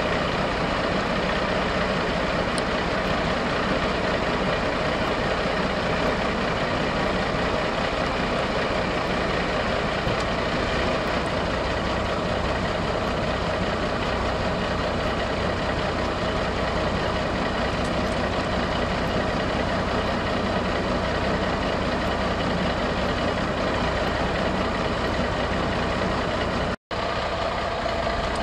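Diesel engine of a 1990 Freightliner dump truck running steadily while the raised dump bed is lowered. The sound cuts out for a moment near the end.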